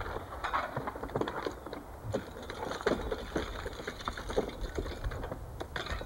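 Icicles along a roof edge being struck and broken off with a long wooden pole: a quick, irregular run of sharp clinks, cracks and knocks as the ice snaps and falls.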